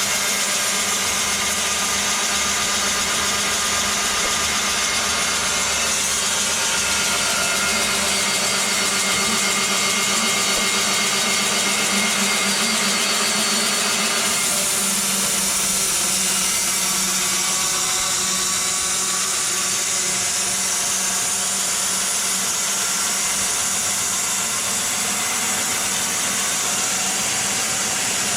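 Sawmill machinery running steadily, a constant mechanical hum and hiss whose higher part changes about halfway through.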